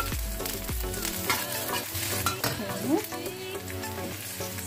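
Chopped shallots, garlic and ginger sizzling as they fry in hot oil in a wok, with a metal spatula scraping and stirring them.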